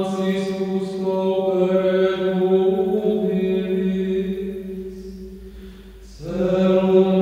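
Slow sung liturgical chant, a single melodic line held on long notes with small steps in pitch. It fades to a breath about six seconds in before the next phrase begins.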